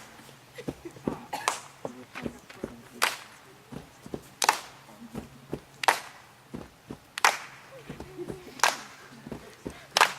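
A group clapping a slow, steady beat in unison, about one sharp clap every second and a half, with scattered softer claps between.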